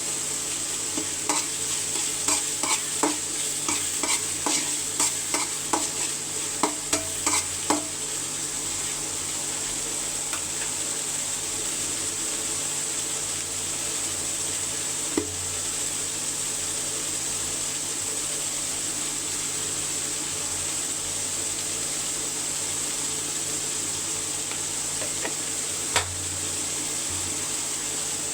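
Food sizzling steadily in hot oil in a cooking pot, with a spoon stirring and knocking against the pot in a quick run of strokes during the first eight seconds, then two single knocks later on.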